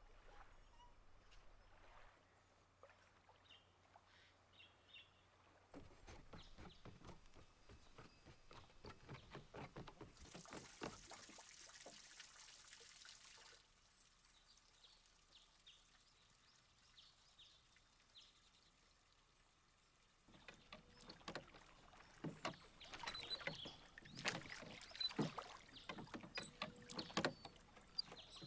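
Quiet ambience with scattered faint clicks. From about two-thirds of the way in, a wooden rowboat being rowed, with irregular knocks that grow louder toward the end.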